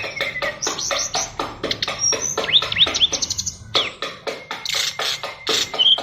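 Sikatan rimba dada coklat (SRDC) songbird singing a fast, packed song: rapid chattering notes, about five or six a second, mixed with whistled glides and short trills. This is the crowded mimicry filling ('isian') prized in contest birds.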